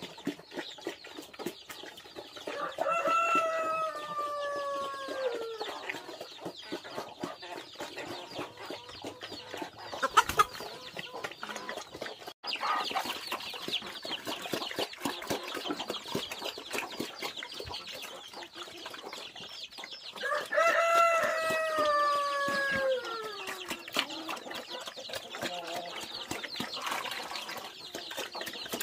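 Rooster crowing twice, each crow about three seconds long and sliding down in pitch at the end, over steady clucking of hens and chicks. A couple of sharp knocks come near the middle.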